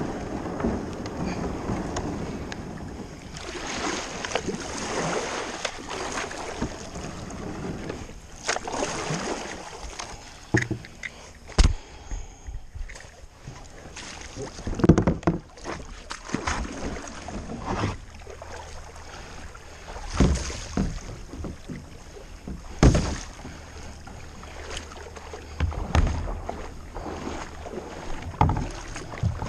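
Kayak being paddled with a double-bladed paddle: irregular blade splashes and water swishing around the plastic hull, with now and then a sharper knock or splash.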